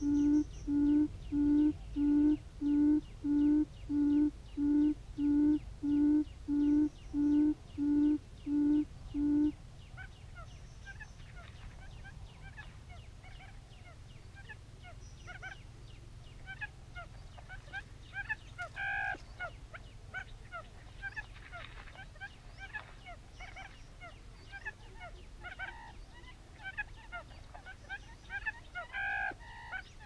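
Quail call played through a speaker as a lure: a loud, low hooting note repeated evenly about one and a half times a second, which stops about nine seconds in. After it come faint scattered bird chirps, with two louder short, higher calls, one midway and one near the end.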